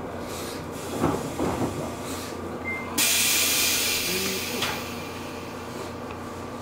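A sudden hiss of compressed air from the 413 series electric train's pneumatic system, lasting under two seconds, after a few knocks in the car about a second in. A steady low hum runs underneath.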